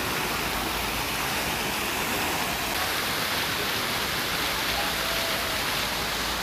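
Steady rushing and splashing of fountain jets, spread from low to very high pitches.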